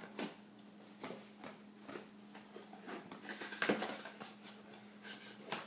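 Scattered light rustles and taps of toys and packaging being handled, the loudest about two-thirds of the way through, over a faint steady hum.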